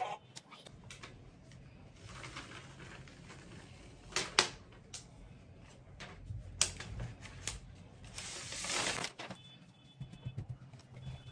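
Cardboard box and paper wrapping handled while an iPad is unboxed: scattered taps, clicks and rustles, two sharp knocks about four seconds in, and a longer paper rustle around eight seconds as the tablet's wrap comes off.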